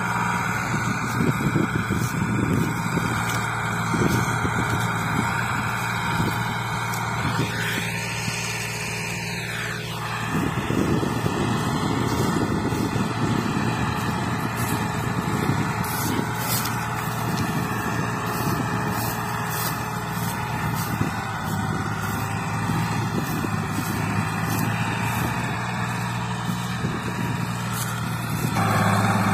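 Massey Ferguson 260 tractor's three-cylinder diesel engine running under load as it pulls a trolley heavily loaded with sugarcane, a steady low engine note that gets louder near the end.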